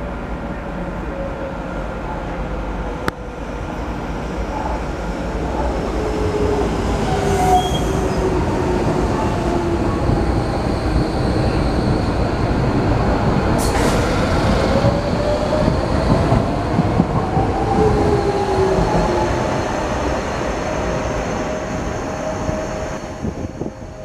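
Docklands Light Railway train running close by on its track: a rumble of wheels on rail with the electric traction motors whining, the whine falling in pitch and then rising again, loudest in the middle.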